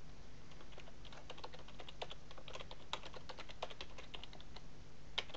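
Computer keyboard typing: a quick run of keystrokes for a few seconds, then a short pause and a couple of sharper key clicks near the end.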